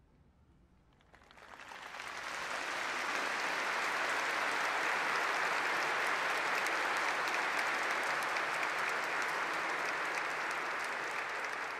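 Audience applauding: the clapping starts about a second in and quickly swells to a steady, dense ovation.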